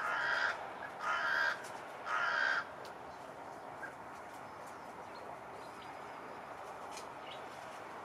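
Hooded crow cawing three times, about a second apart, each caw about half a second long.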